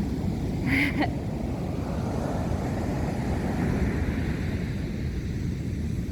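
Pacific Ocean surf washing on the beach, a steady rushing with wind rumbling on the microphone. A short, sharper sound stands out a little under a second in.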